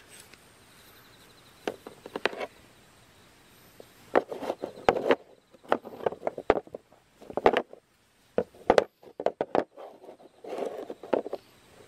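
Gloved hands handling the parts of a Shishikabu foot snare trap: the slotted plastic ring and steel wire cable knocking, clicking and scraping against a board in several short irregular clusters.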